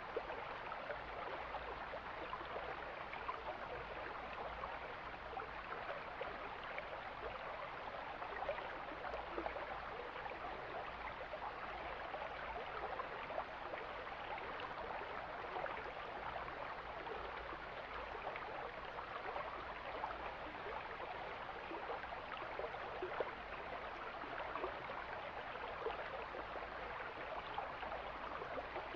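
Mountain stream flowing steadily over rocks, a constant rush of water dotted with small splashes.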